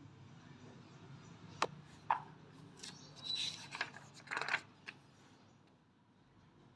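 A paper page of a book being turned over: two sharp clicks, then a couple of seconds of paper rustling and flapping, ending with a light tap.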